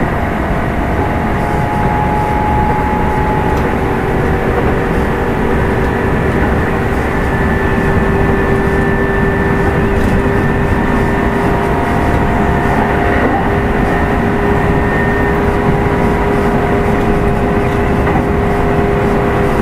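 Kintetsu 2610-series electric motor car running under way: a steady rumble of wheels on rail with a few held whine tones from the drive.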